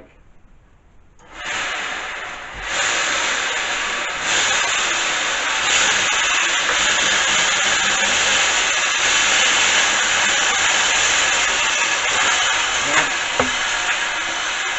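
Homemade 2x72 belt sander starting up about a second in and running, a loud, very noisy rushing sound that steps up twice over the next few seconds, with two sharp clicks near the end. The noise is a sign that something is not yet aligned, which the builder suspects is in the belt or the belt tensioner.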